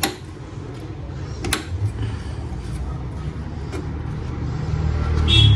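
Small clicks and handling noises from computer parts and cables being worked inside an open desktop PC case, with one sharp click about one and a half seconds in, over a steady low hum.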